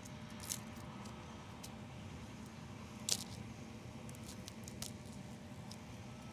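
Scattered clicks and crinkles of hands pulling leftover Apiguard plastic out of an open beehive, the sharpest about three seconds in, over a steady low hum.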